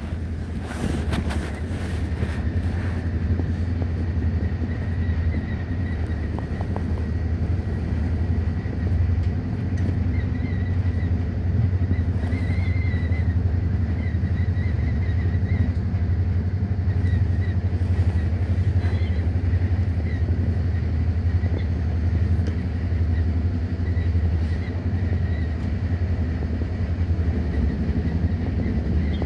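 Steady low rumble of a moving road or rail vehicle, with a faint high whine that wavers now and then.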